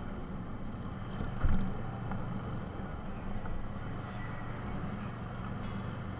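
Motorcycle engine running steadily while riding, a low even hum under road and wind noise, with one brief thump about a second and a half in.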